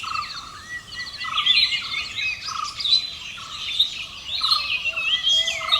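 Several forest birds calling together: overlapping chirps and whistled notes, with a short buzzy note repeated about once a second.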